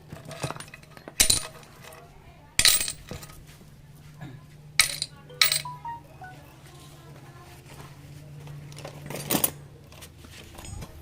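Sharp metallic clinks and knocks of hand tools and engine parts being handled and set down, about five separate strikes, over a steady low hum.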